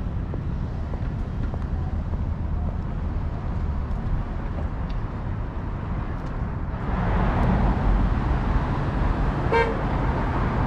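City street traffic: a steady rumble and hiss of vehicles, swelling louder about seven seconds in as traffic passes, with a brief car horn toot near the end.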